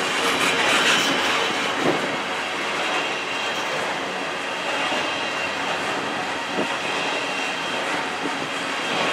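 Double-stack container train on well cars rolling past, its steel wheels on the rails making a steady noise, with a couple of sharp clicks about two seconds in and again near seven seconds.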